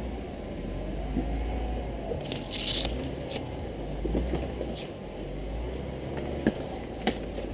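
Off-road vehicle's engine running at low speed, its pitch slowly rising and falling, with a short hiss a little over two seconds in and a couple of sharp knocks near the end.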